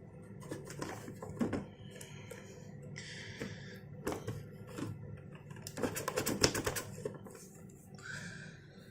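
An action-figure box being opened by hand: scattered clicks and taps from the box and its packaging, with short rustles, and a quick run of clicks about six seconds in that is the loudest part.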